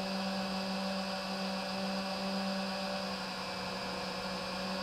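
FPV quadcopter's brushless motors and propellers whining steadily at an even throttle, heard through the onboard camera, with a steady hum near 200 Hz and fainter higher tones.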